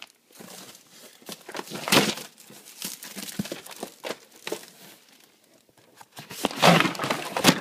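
Clear plastic wrap crinkling and tearing as hands pull it off a cardboard box, in irregular rustling bursts that are loudest about two seconds in and again near the end.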